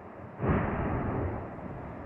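One sudden explosive blast from the La Palma volcano's main vent about half a second in, fading over a second into a steady low rumble.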